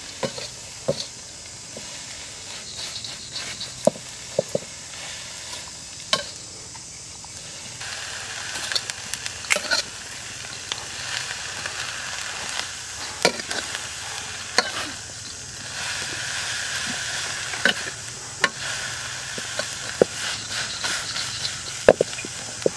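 Crickets stir-frying with chili and herbs in a wok over a wood fire: a steady sizzle that grows louder about eight seconds in, with sharp clicks and scrapes as the metal spatula stirs against the pan at irregular intervals.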